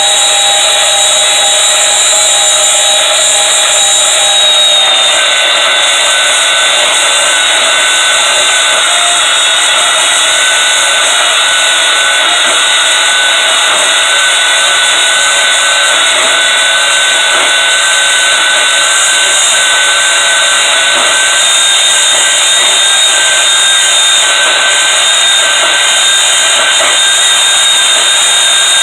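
Power tool cutting 1-inch steel flat bar: a loud, steady, high whine with a hiss, its pitch dropping slightly about five seconds in as the tool bears into the cut.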